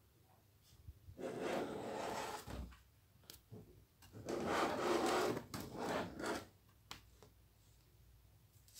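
Rubbing, scraping noise in two bursts, the first about a second long and the second about two seconds, with a few sharp clicks in between.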